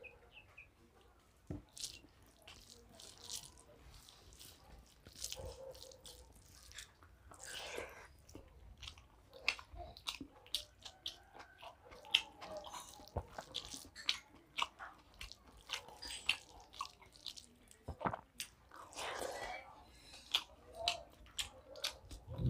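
Close-miked eating: chewing mouthfuls of rice and dal, with many short wet mouth smacks and clicks.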